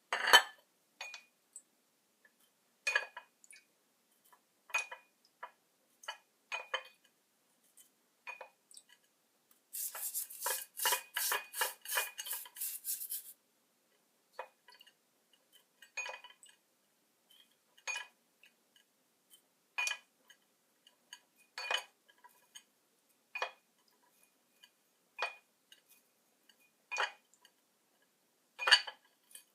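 Small metal objects, tools or parts, clinking and clicking as they are handled and set down, with separate knocks every second or two. A quick run of rapid clicks comes about a third of the way in.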